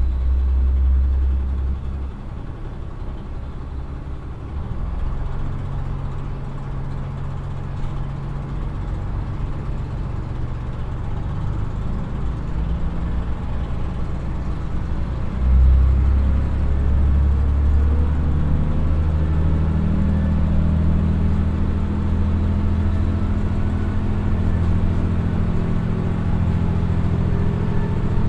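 Komatsu DMF11HZ six-cylinder diesel engine of a KiHa 100 railcar pulling the train along and accelerating, heard from inside the passenger car. The engine note swells at the start, eases a couple of seconds in, then builds again. About halfway it jumps suddenly in loudness, and from there its pitch climbs steadily as the train gathers speed.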